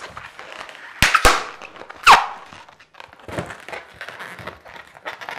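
Latex twisting balloons squeaking and rubbing against each other as a white balloon is twisted into a small bubble, with two sharp snaps about a second in and a loud falling squeak about two seconds in.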